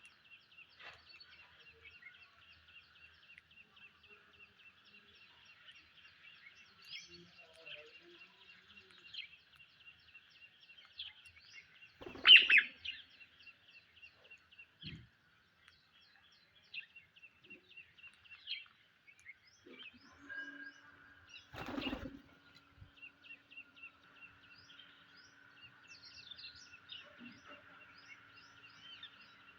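Psittacula parakeets chirping: a steady run of short high chirps, broken by a loud screech about twelve seconds in and another loud call about twenty-two seconds in.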